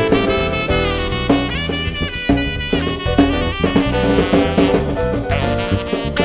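Live jazz: a saxophone playing a moving melodic line over drum kit and guitar accompaniment.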